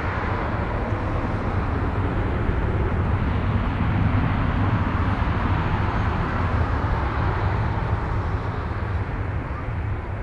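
Boeing 737-800's twin CFM56-7B turbofan engines at take-off power during the take-off roll: a loud, steady jet rumble with a rushing hiss. It swells to its loudest about four seconds in, then eases off as the jet pulls away down the runway.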